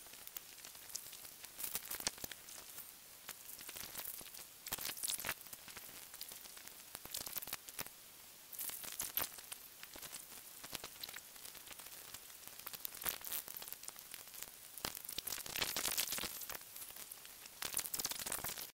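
Rough stones being set and shifted in a bed of sand: scattered gritty scrapes and short clicks of rock against rock, coming in irregular bursts.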